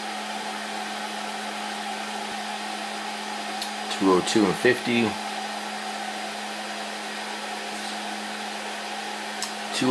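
Steady fan whir with a constant low hum from a Snapmaker 2.0 3D printer idling while its nozzle and heated bed warm up before printing.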